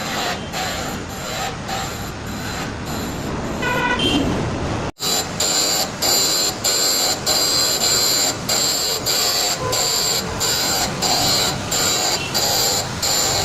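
Machine tool running with a regular pulse of about three beats a second and a steady high whine. A short pitched tone sounds about four seconds in, and there is an abrupt break about a second later.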